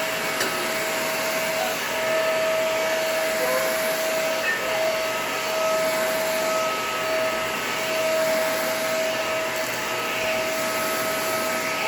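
Vacuum cleaner running steadily on an area rug, a constant whine over the rush of air.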